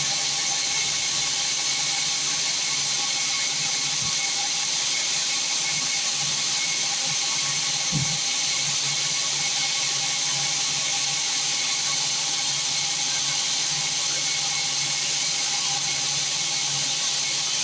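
Sawmill machinery running steadily: an even hiss with a few faint steady whining tones underneath, and a single low thump about eight seconds in.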